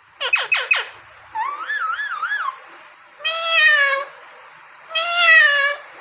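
Pet green parakeet calling: four quick falling chirps, then a wavering warble, then two longer drawn-out calls.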